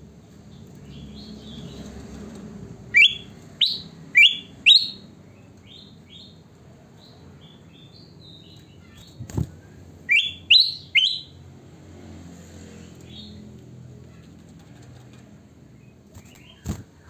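Kutilang emas bulbul singing in bursts of short, rising, whistled notes: four loud ones about three seconds in and three more about ten seconds in, with fainter notes between. Two sharp knocks are heard, about nine seconds in and near the end.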